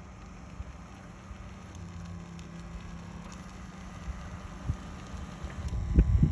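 TinyMobileRobots line-marking robot driving over infield clay: a steady low electric-motor hum with light crackling from its tyres on the dirt. Near the end a loud low rumble rises as the robot closes in.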